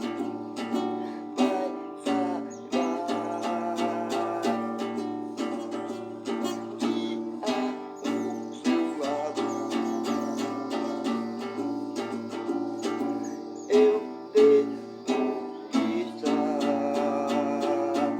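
Acoustic guitar strummed in steady chords, with plucked notes ringing between the strokes.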